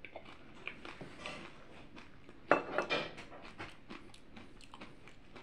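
Quiet eating sounds from a fried, crisp potato taco: chewing with scattered crunches and crackles of the fried tortilla shell and light clicks of the plate, the loudest crunch about two and a half seconds in.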